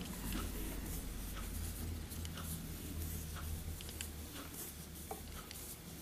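Faint rustling and rubbing of hands wrapping chenille around a fly hook held in a vise, with a few small ticks, over a low steady hum.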